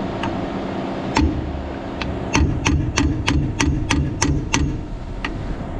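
Hammer striking a stuck steel bolt on a manure trailer's nurse boom pivot, about ten sharp metal blows, roughly three a second in the middle run, trying to drive it out. An engine runs steadily underneath.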